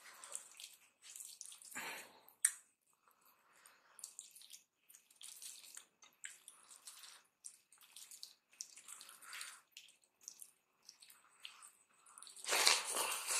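Fingers squeezing and mixing cooked rice with dal on a plate: soft, wet, irregular squelches and clicks. Near the end a louder wet burst as a handful goes into the mouth.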